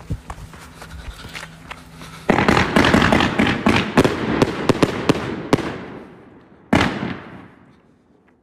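A 1.2-inch, 60-shot consumer firework cake firing. Sharp pops for the first two seconds give way to a sudden dense run of bangs and crackling that fades off, with one more single loud bang later on.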